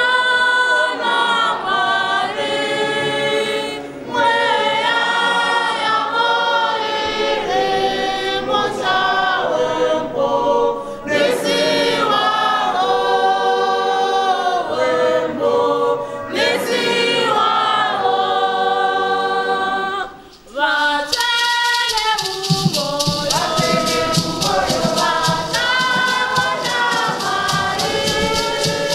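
A church congregation singing a Shona hymn together. About three-quarters of the way through, a rhythmic shaking sound joins the singing.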